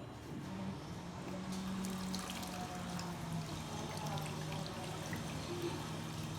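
Water running and trickling steadily inside a concealed toilet cistern, with a faint steady low hum.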